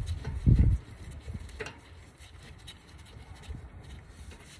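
Brake caliper bolt being unscrewed by hand, with faint small metallic ticks and rubbing. A single dull low thump comes about half a second in.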